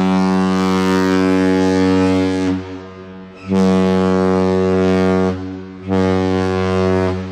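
The Mesabi Miner lake freighter's horn sounding the salute to the bridge, one long and two shorts: a deep, steady blast that ends about two and a half seconds in, then two shorter blasts.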